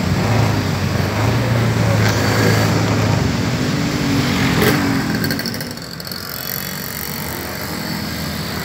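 Motorcycle engine running steadily while riding along a city street, with a low hum that eases off about six seconds in, amid street noise.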